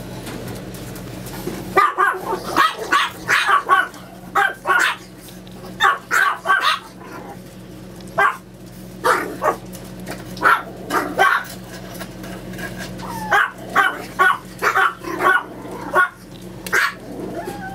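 Chihuahua puppies barking in play, short high yips in quick runs with brief pauses between them, over a steady low hum.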